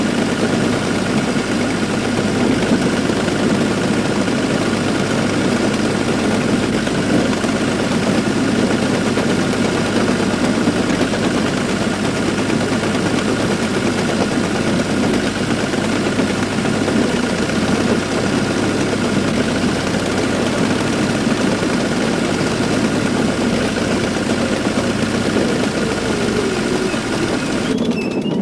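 Fiat 665C Montagna crawler tractor's three-cylinder 3.5-litre diesel engine running steadily while the tractor drives along, heard up close from the driver's seat, with a steady high-pitched whine over the engine note. The sound cuts off abruptly near the end.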